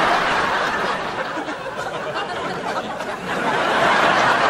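Sitcom studio audience laughing, a dense crowd laugh that dips in the middle and swells again near the end.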